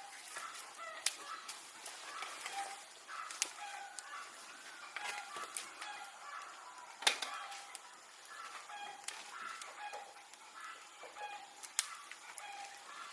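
Chickens clucking, with many short repeated calls, and a few sharp clicks among them, the loudest about seven seconds in.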